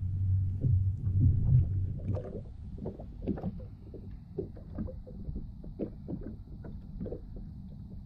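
Water lapping and slapping against a plastic kayak hull at sea, with a low rumble for the first two seconds, then irregular small knocks and splashes.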